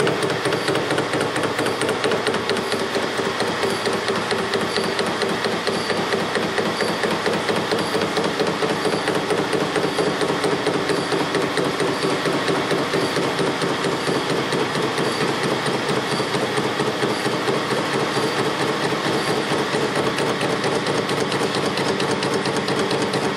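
Metal lathe spinning a BMW motorcycle connecting rod in its chuck while the cutting tool takes material off it: a steady machine hum with a rapid, even tapping.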